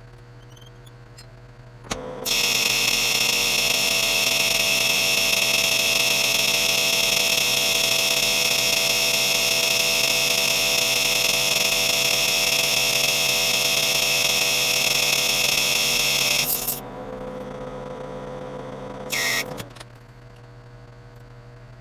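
Metal lathe turning a 1045 steel shaft with an insert tool: a loud, shrill ringing whine of several high tones sets in about two seconds in as the tool cuts, holds steady for about fourteen seconds, then drops to a quieter cut with a brief shrill squeal, and falls back to the lathe running quietly.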